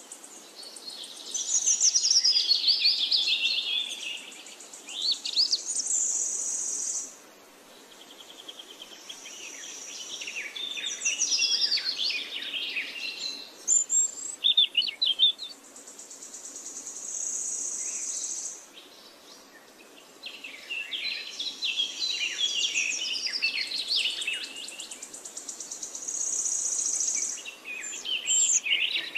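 A songbird singing a long, varied song of quick falling whistles and chirps, with high buzzy trills held for a few seconds, in phrases with short breaks between them.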